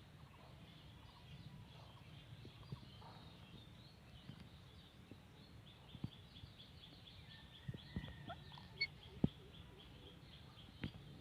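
Faint high bird chirping, with a quick run of evenly spaced chirps partway through. Several sharp clicks, the loudest of them a little before the end, fit an Indian ringneck parrot's beak cracking corn kernels.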